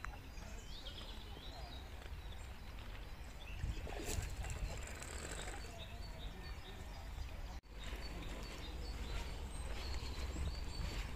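Outdoor trail ambience: birds chirping in short calls over a low, steady rumble, with a single knock about four seconds in.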